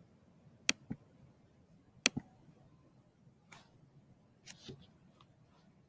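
Two pairs of sharp clicks, one pair about a second in and another about two seconds in, then a few fainter short taps.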